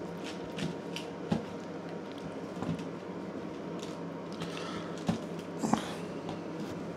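Oil-coated pumpkin wedges being handled and set down on a parchment-lined roasting tray: soft wet squishes and scattered light knocks, the sharpest a little after five seconds in, over a faint steady hum.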